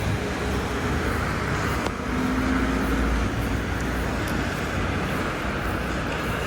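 Road traffic: a steady hiss and low rumble of tyres on a wet street, swelling about two to three seconds in as a vehicle passes.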